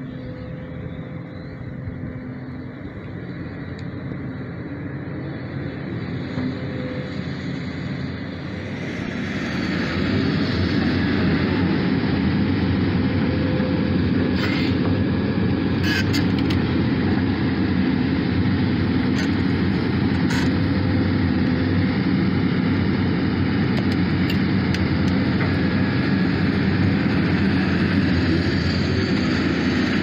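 Sumitomo SH300 hydraulic excavator's diesel engine running steadily while it digs. The sound grows louder and fuller about a third of the way in, with a few sharp knocks in the middle.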